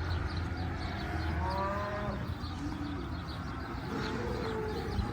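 Cattle mooing in a pen of cows and Angus calves: a few separate calls, one about a second and a half in that rises and falls in pitch, and another lower one near the end.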